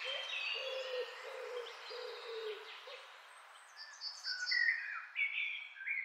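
Forest birdsong: several songbirds chirping and whistling over a low call repeated about twice a second. The low call stops about halfway through, and a livelier run of high chirps comes near the end.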